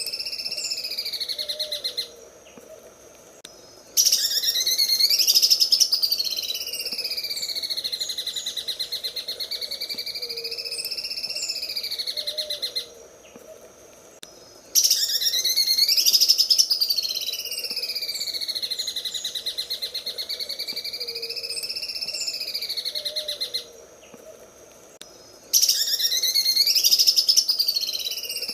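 Cucak ijo (green leafbird) singing its 'sewing machine' song: a fast, rattling trill that swoops up and down in pitch. It comes in long phrases broken by three short pauses, each phrase starting loudest, and the same phrase repeats about every ten seconds.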